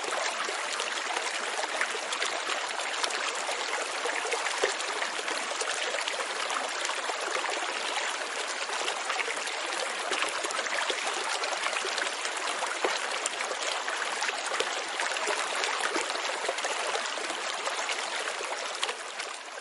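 Steady rush of running, bubbling water, fading out near the end.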